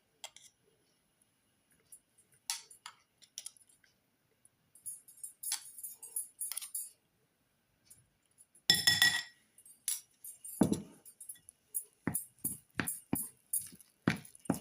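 Kitchen utensils clinking and tapping against a vessel: scattered light clicks, then one louder ringing clink about nine seconds in, and a quick run of taps near the end.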